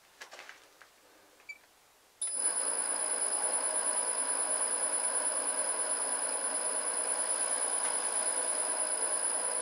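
Homemade metal lathe with a newly turned spindle starting up suddenly about two seconds in, then running steadily with its chuck spinning: an even machine hum carrying a steady high tone and a fine rapid flutter.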